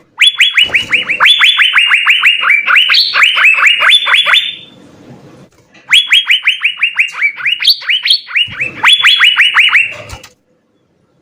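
Asian fairy-bluebird (cucak biru) singing: rapid runs of sharp, downward-sliding whistled notes, about six a second, in two long phrases of about four seconds each with a short pause between.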